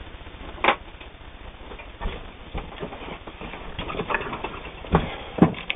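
Handling noises from a person at the sewing machine: a sharp click about two-thirds of a second in, then scattered irregular knocks and rustles, the loudest near the end.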